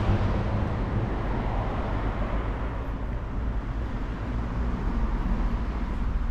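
A road vehicle passes close by, and its sound fades away over the first few seconds. A steady low traffic rumble continues under it.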